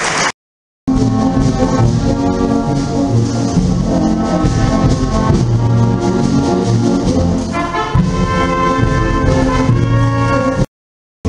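Youth wind band playing a march, with trumpets and trombones to the fore. The sound cuts out for about half a second just after the start and again just before the end.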